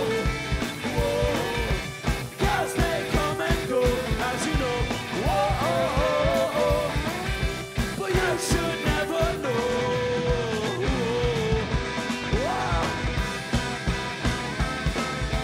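Rock band playing live: electric guitars and drums at full volume, with a sung vocal melody over them.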